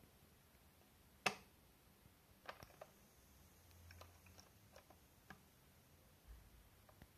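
A sharp click about a second in, then a scattering of lighter clicks and taps: a small screwdriver and the test leads being handled while the regulator's trimmers are adjusted.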